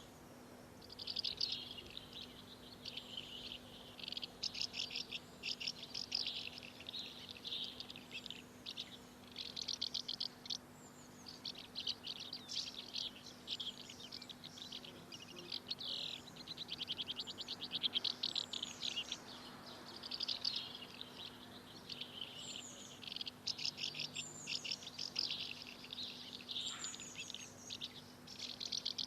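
Birds chirping and trilling, many quick overlapping calls with hardly a pause.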